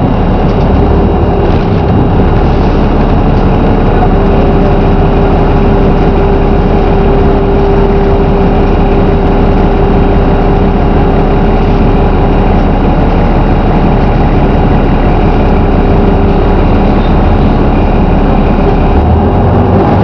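Volvo B7RLE single-deck bus's six-cylinder diesel engine running steadily, heard from inside the passenger saloon, with a constant hum over the engine note.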